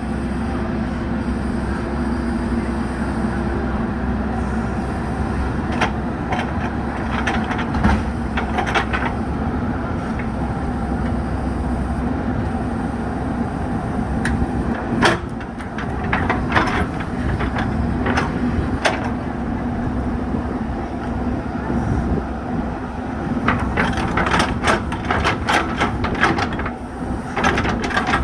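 JCB 3DX Super backhoe loader's diesel engine running steadily under working load, with several bursts of clanking and knocking from the machine as it digs and pushes soil, the busiest stretch of clanks near the end.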